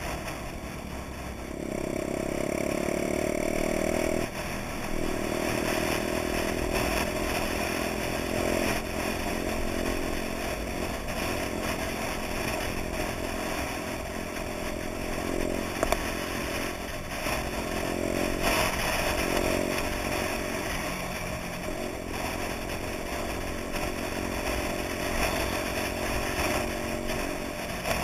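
Honda Dax minibike's small four-stroke single-cylinder engine running while riding, heard from the bike itself. The engine note drops briefly several times and picks back up as the throttle is worked, over a steady rush of wind and road noise.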